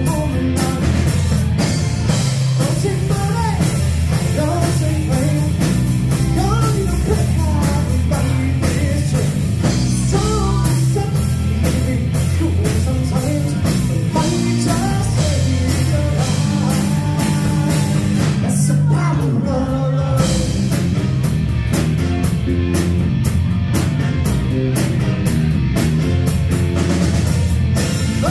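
Live rock band playing: a male singer over electric guitar, bass guitar and drums. About two-thirds of the way through there is a short break with a falling slide, after which the drums play busier.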